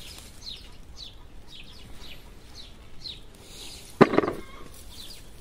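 A bird chirps over and over, about two short falling chirps a second. About four seconds in there is one sudden loud sound.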